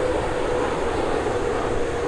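Boeing 777 jet engines on final approach with the landing gear down: a steady roar with a steady whine running through it.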